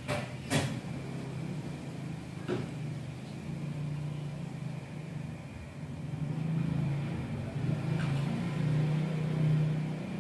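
Low steady motor hum that grows louder in the second half, with a few light clicks, the sharpest just after the start.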